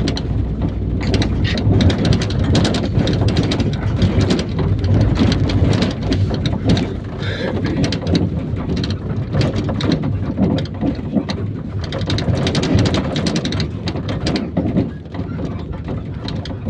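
IVECO Daily 50-140 bus heard from inside the cabin while driving: a heavy, steady rumble of engine and road with dense rattling and clattering throughout, easing somewhat near the end.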